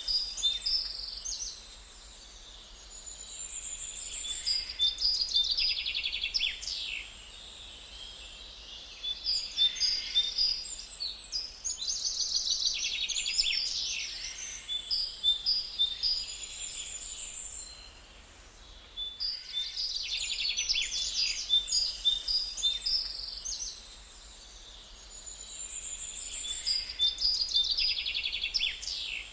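Small birds chirping and calling in quick, high trills, in bouts separated by quieter gaps. Almost the same sequence of calls repeats about every ten seconds.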